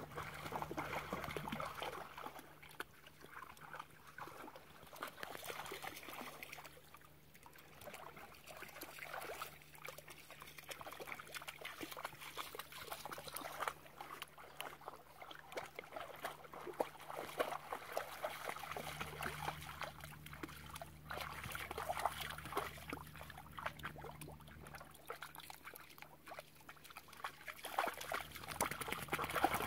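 Wirehaired vizslas wading through shallow lake water, their legs making small, uneven splashes and trickles that come and go.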